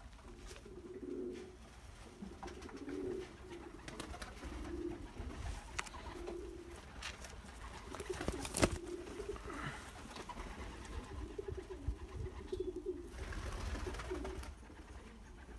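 Racing pigeons cooing, many low coos one after another. A single sharp click comes about eight and a half seconds in and is the loudest moment.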